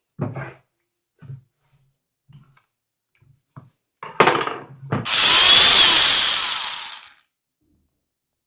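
A few light handling knocks, then a power drill runs for about two seconds and winds down.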